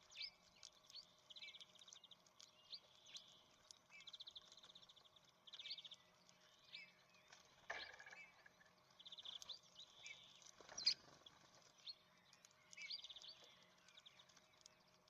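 Small songbirds at a feeder calling faintly: repeated short chirps and several quick rattling trills. There are two brief knocks, one about eight seconds in and one about eleven seconds in.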